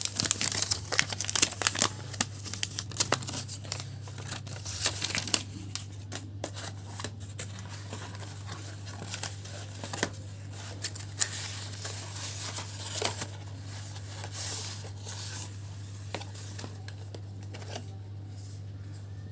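Packaging being handled and opened by hand: crinkling and tearing with scattered crackles and clicks, busiest in the first half and thinning out toward the end, over a steady low hum.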